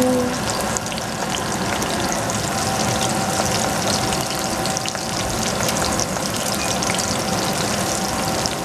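Cut scallions and ground spice sizzling in hot oil in a stainless saucepan: a steady frying hiss peppered with small crackles and pops.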